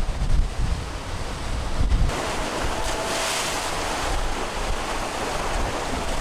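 Wind buffeting the microphone over rushing, foaming sea water along the hulls of a sailing catamaran in strong wind. About two seconds in, the low gusty rumble drops away and a steadier, brighter hiss of wind and water takes over.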